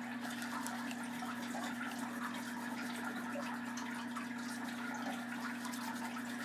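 Oil pastel rubbed across paper in coloring strokes, a soft scratchy scrubbing, over a steady low hum.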